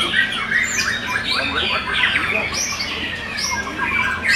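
Young white-rumped shamas singing in competition, several at once: a dense, unbroken mix of overlapping whistled notes and quick rising and falling sweeps.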